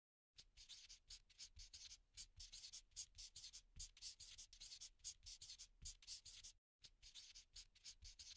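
Faint scratching of a Posca paint-marker nib drawn across a dark surface in quick, short strokes as lettering is drawn, starting about half a second in, with a brief pause a little after six seconds.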